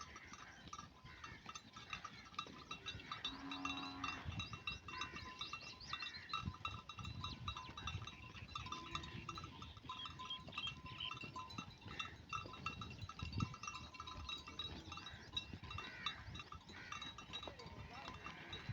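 Bells worn by a grazing flock of dumba sheep jingling steadily as the animals move, with a short call from one animal about three and a half seconds in.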